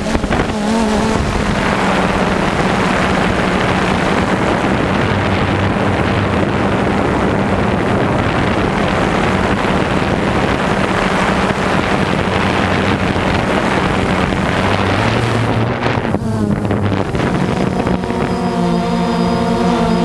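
DJI Phantom 2 quadcopter's motors and propellers buzzing steadily in flight, heard from the camera on board, with wind rushing over the microphone. Near the end the pitch starts to waver as the motors change speed.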